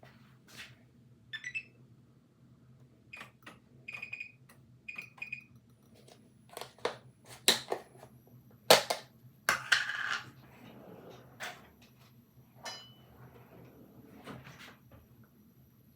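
Kitchen handling sounds: a string of clinks and knocks from cookware and utensils being moved and set down, some briefly ringing, the loudest knocks about seven to ten seconds in. A faint steady high whine starts about six seconds in.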